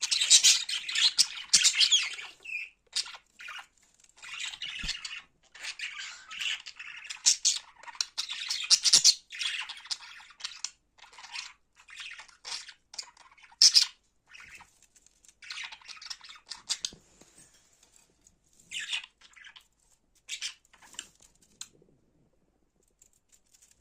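Cockatiel chirping and squawking in irregular bursts, busiest in the first ten seconds and sparser after that.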